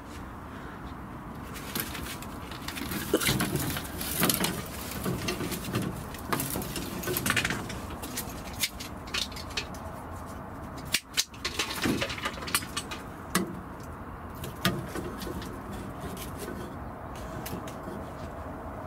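Rustling and scattered sharp clicks from grapevine branches being handled and moved.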